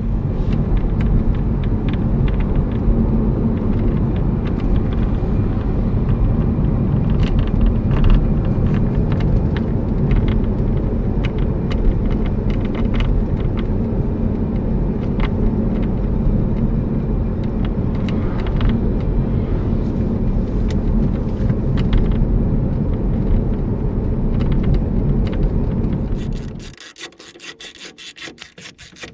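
Road rumble inside a moving car's cabin, with irregular light knocks and clicks over it, typical of the drumming of a Renault Scenic 3's panoramic glass roof on the road. It cuts off suddenly near the end.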